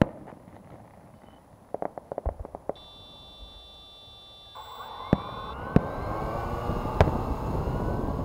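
Quadcopter motors whining, from about halfway in, with several pitches that waver and glide. Sharp firework bangs go off over it: one at the start, a burst of crackling pops about two seconds in, and three loud reports near the end.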